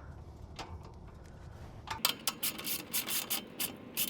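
Irregular clicks and scrapes of hand tools on metal exhaust hardware as the exhaust is fitted and tightened, starting about halfway through after a quiet stretch.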